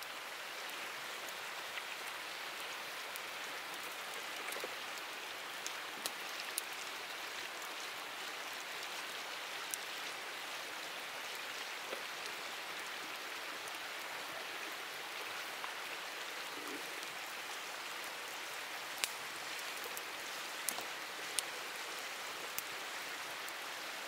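Wood campfire of split logs burning, a steady hiss and flutter of flames with sharp crackles and pops every few seconds, the loudest pops in the last few seconds.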